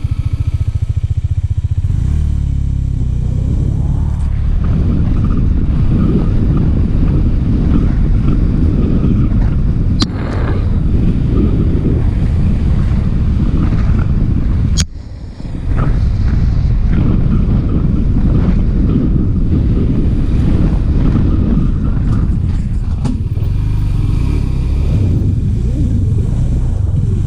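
Motorcycle engine running as the bike rides a rough dirt trail, heard from a camera mounted on the bike. There is a sharp click about a third of the way in, and just past halfway a sharp snap followed by a brief drop-out in the sound.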